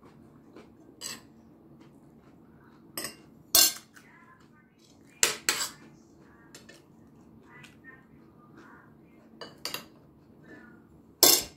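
Metal cutlery clinking against a plate: several short, sharp clinks spread out, the loudest about three and a half, five and a half and eleven seconds in.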